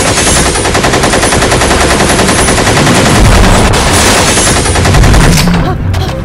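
Automatic gunfire: one long, rapid, unbroken burst that stops about five and a half seconds in.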